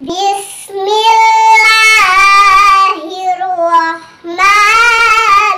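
A child's voice in melodic Quran recitation, drawn out on long wavering vowels in two high, loud phrases, with a short breath about four seconds in.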